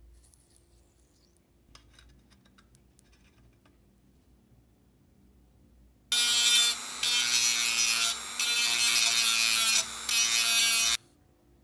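A small handheld power tool's motor runs steadily for about five seconds, with three brief breaks, starting about six seconds in. Before it come only a few faint handling clicks.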